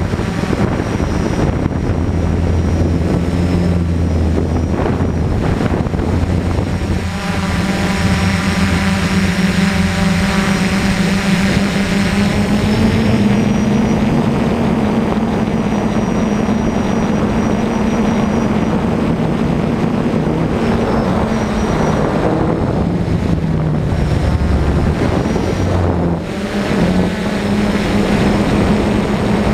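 DJI F450 quadcopter's electric motors and propellers whirring, the pitch shifting up and down as the throttle changes.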